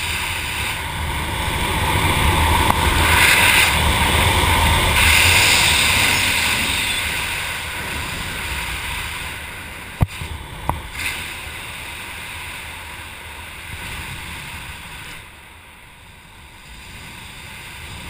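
Wind rushing over the camera's microphone while flying under an open parachute canopy, swelling loudest in the first few seconds and easing off later. Two sharp taps about ten seconds in.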